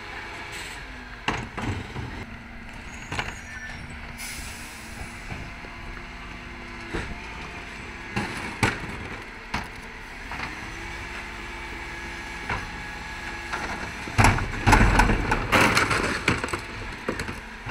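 Dennis Elite 6 bin lorry running with its diesel engine humming steadily while the Terberg bin lift works, wheelie bins knocking and clattering against the lift. A short hiss comes about four seconds in, and a loud run of heavy bangs and clatter near the end as a bin is emptied.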